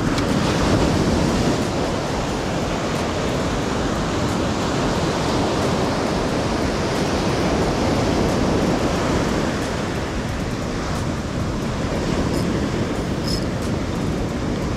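Steady rush of ocean surf washing over a rocky beach, mixed with wind.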